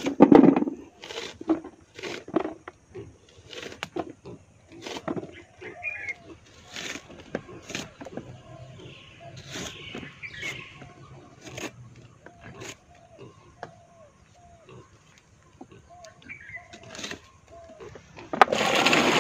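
Irregular sharp clicks and knocks of a knife cutting and peeling green bananas, with short chirping animal calls in the background and a loud rushing noise near the end.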